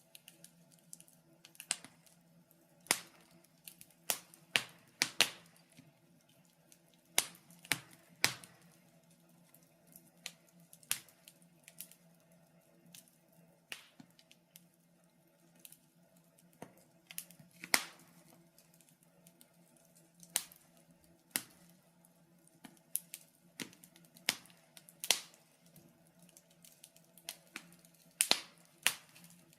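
Wood fire crackling in a fireplace: irregular sharp pops and snaps at uneven intervals, some much louder than others, over a faint steady hum.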